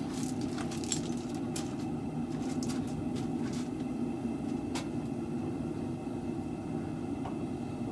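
Steady low mechanical hum with scattered light clicks and taps, most of them in the first half.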